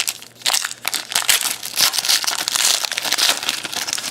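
Plastic trading card pack wrapper crinkling and crackling as it is torn open and crumpled.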